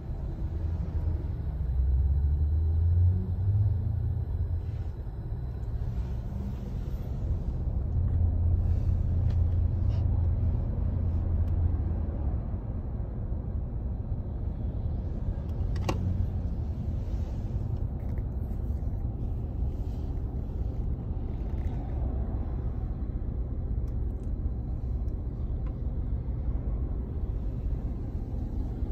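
Car engine and road rumble heard from inside the cabin while crawling in heavy traffic: a steady low rumble that swells twice in the first half. A single sharp click sounds a little past halfway.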